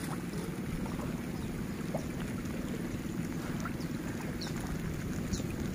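A small motor running steadily with a low, even drone.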